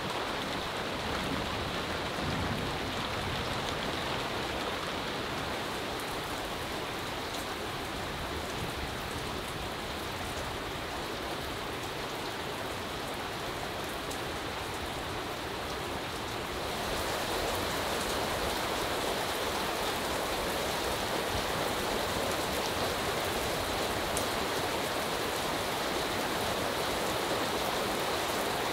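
Steady rain falling on a leaf-thatched roof and dripping from its eaves. It gets louder and brighter about 17 seconds in.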